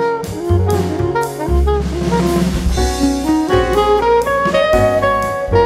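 Instrumental jazz-style background music with a bass line and a steady drum beat.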